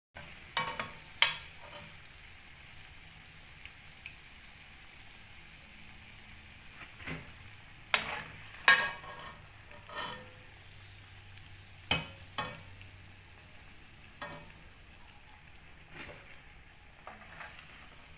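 Half cakes deep-frying in a pan of oil with a steady sizzle, while a metal slotted spoon clinks against the pan again and again as the fried pieces are scooped out.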